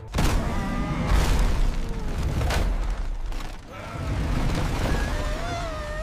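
Cartoon sound effects of a block wall collapsing: deep rumbling with heavy crashes, the first just after the start, others about a second and two and a half seconds in.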